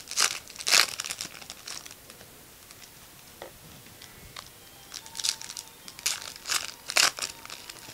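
Trading-card pack wrappers crinkling and being torn open by hand. The sharp crackles come in two bunches, one in the first couple of seconds and another from about five to seven seconds in, with a quieter spell between.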